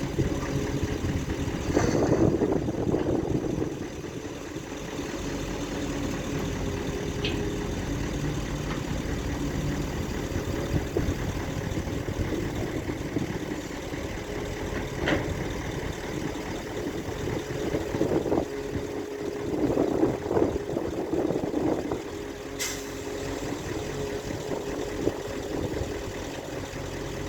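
Excavator at work, its engine running steadily, with two louder, rougher stretches about two seconds in and again around twenty seconds, and a few sharp clicks or knocks.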